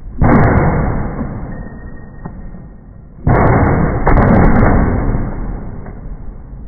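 Rifle shots from a 20-inch Rock River Arms AR-15A4: one loud report a fraction of a second in and another about three seconds later. Each rings out with a long fading echo.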